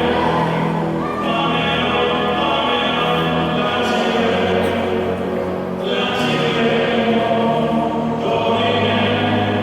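Choral music with slow, sustained chords that change every few seconds.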